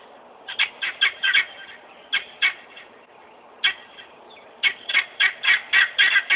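Guinea fowl squawking in short, harsh, repeated calls, first in scattered bunches and then in a steady run of about four calls a second near the end.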